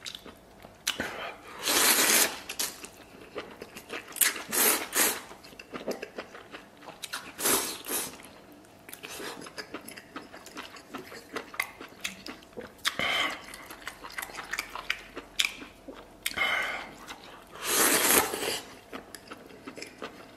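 Close-up eating sounds: several loud slurps as strips of shredded beef tripe and omasum are sucked up from spicy broth, with crisp crunching chews in between.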